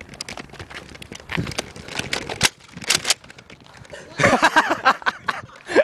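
Scattered sharp clicks and knocks from a Nerf battle under way: foam-dart blasters being primed and fired, and feet on the court. There is a denser burst of noise about four seconds in.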